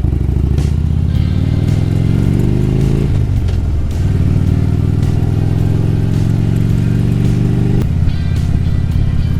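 Harley-Davidson Road Glide's V-twin engine accelerating through the gears: the pitch climbs, drops at a shift about three seconds in, climbs again, and falls away sharply near the end.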